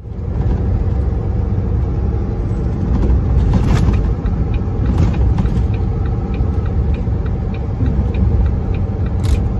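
Tractor-trailer truck driving at road speed, its engine and road rumble heard from inside the cab. Faint regular ticking about twice a second runs through the middle.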